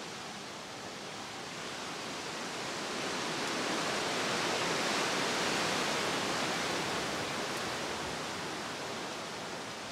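Autumn storm wind rushing, swelling into a stronger gust about halfway through and then dying back.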